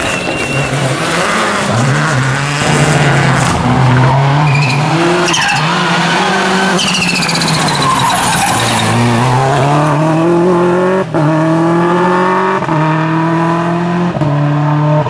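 Subaru Impreza WRC rally car's turbocharged flat-four engine driven hard, its pitch rising and falling with throttle and gear changes. In the second half it climbs through several quick upshifts, each one a sudden small drop in pitch.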